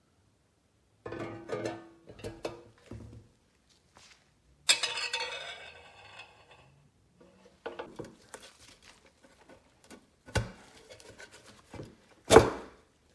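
Metal vending-machine parts being handled and fitted together: a series of clunks and taps, with a ringing metallic clang about five seconds in and a sharp knock near the end.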